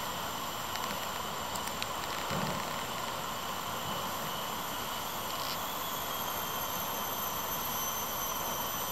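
Steady outdoor background hiss with several faint, constant high-pitched tones, and a few faint clicks and a soft low thump about two seconds in.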